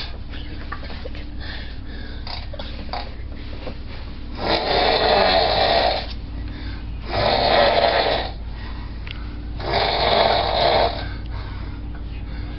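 A person snoring loudly: three long, rasping snores about two and a half seconds apart, each lasting a little over a second, with quieter breathing between them.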